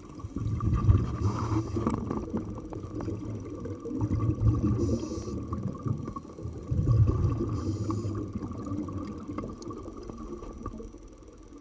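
Scuba regulator breathing heard underwater: three breaths about three seconds apart, each a short hiss with a surge of rumbling exhaled bubbles.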